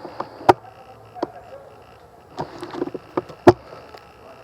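Airsoft guns firing irregular single shots, sharp cracks with the two loudest about half a second in and near the end, and a quick cluster of several shots in between.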